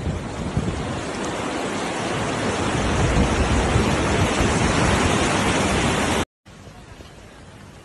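Torrent of muddy floodwater rushing, a loud steady roar that builds over the first three seconds. It cuts off abruptly about six seconds in, giving way to a much quieter steady hiss.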